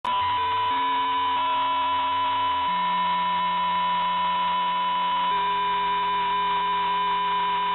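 Synthesized audio payload of the Mandela.exe malware: a loud, steady high tone over stacked electronic tones whose lower notes step to new pitches every second or two, starting abruptly.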